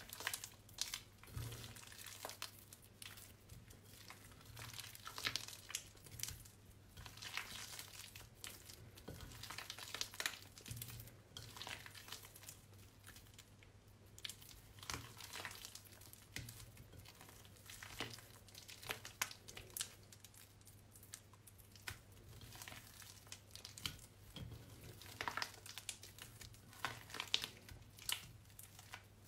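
Hands squeezing and kneading soaked, mushy bar soap: a run of small, irregular wet crackles and squishes as the soft soap is pressed and pulled apart.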